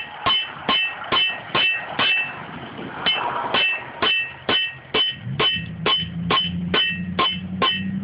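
Blacksmith's hammer striking iron on an anvil in a steady rhythm, about two and a half ringing blows a second, with a short pause about two seconds in. A low steady hum joins about five seconds in.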